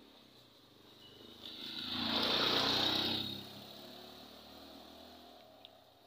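A motorcycle passing close by: its engine and tyre noise build, peak about halfway through, then drop off and fade as it pulls away.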